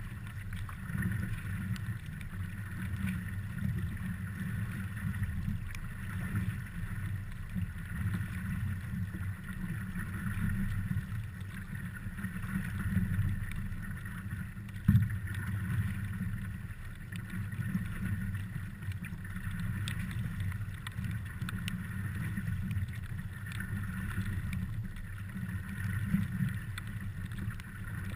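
Stand-up paddleboard gliding over choppy lake water: a steady wash of water against the board's hull mixed with wind on the microphone. A single thump about halfway through.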